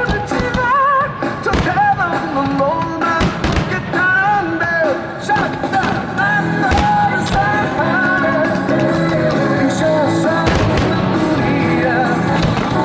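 Loud music with a singing voice, played over a fireworks show, with sharp firework bangs cracking in at irregular moments.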